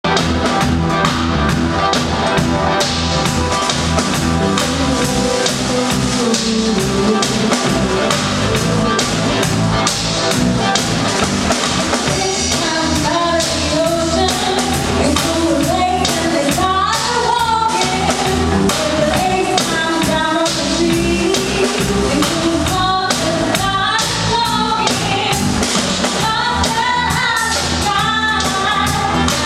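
A song run through at a sound check, with a steady drum-kit beat from the start and a singing voice coming in about twelve seconds in.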